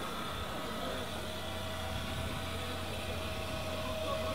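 Turbocharged six-cylinder engine of a sand drag pickup idling steadily, with a thin steady whine that grows stronger in the second half.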